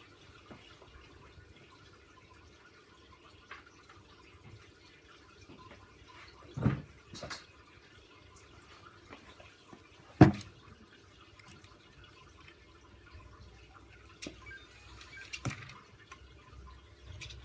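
A few scattered knocks and clicks over quiet room tone, the loudest a sharp knock about ten seconds in.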